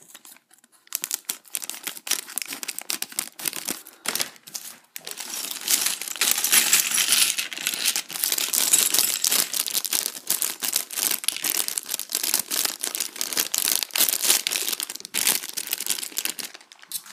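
Thin plastic LEGO polybag crinkling and crackling as it is handled and opened by hand. The crackling is sparse at first, then denser and louder from about five seconds in.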